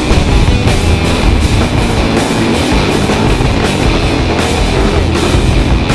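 Loud rock music with a steady beat.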